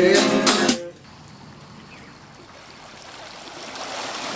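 The last strummed guitar chords of a song, which cut off abruptly about a second in. After that comes a faint, steady background hiss.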